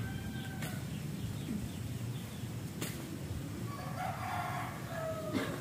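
A rooster crowing: one long crow about four seconds in, falling in pitch at its end, with the tail of another call fading out at the very start.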